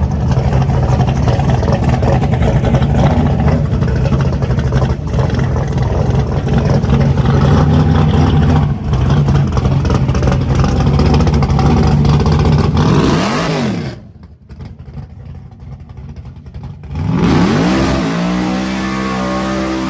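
Nitrous-equipped car engine running hard at a steady high, loud note, with a brief dip about nine seconds in. After about thirteen seconds the note sweeps up and back down and falls away for about three seconds, then comes back as a steadier, lighter engine note.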